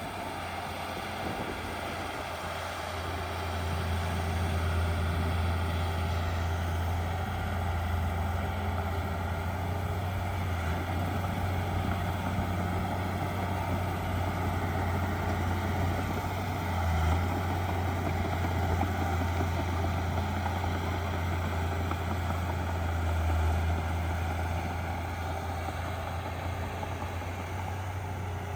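Diesel engine of heavy earthmoving machinery running steadily, a deep drone that grows louder about four seconds in.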